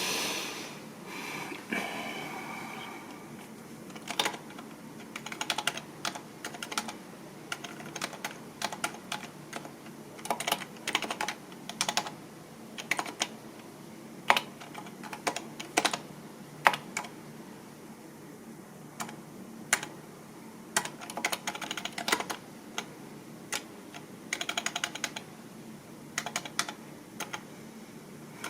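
Typing on a computer keyboard: irregular bursts of keystroke clicks with short pauses between them, starting about four seconds in, with a few louder single key presses. A brief rustle comes just before the typing.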